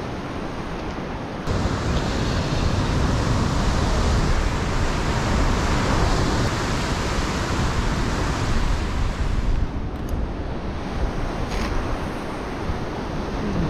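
Ocean swell breaking and surging against the foot of a rock cliff, a steady rush of surf that grows louder about a second and a half in and eases off after about ten seconds, with some wind on the microphone.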